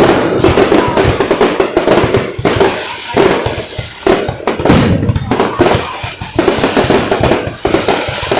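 A fireworks display: many bangs and crackles in quick, irregular succession, with music playing underneath.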